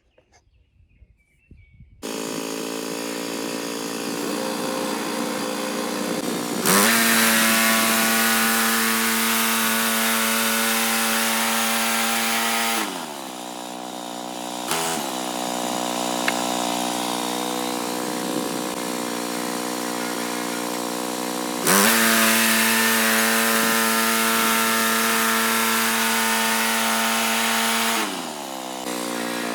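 Gas engine of a Woodland Mills HM126 portable bandsaw mill starting up and idling, then throttled up to full speed twice for about six seconds each time before dropping back to idle.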